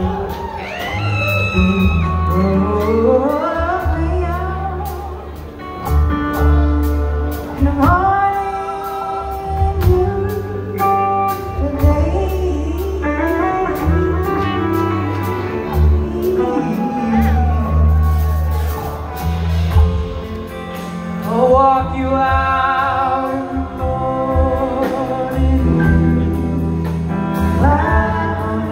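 Live rock band playing a slow song, with an electric bass line underneath and singing voices and lead lines above it.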